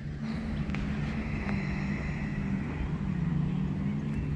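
A small boat's motor running steadily, a low, even hum with a slight waver in pitch.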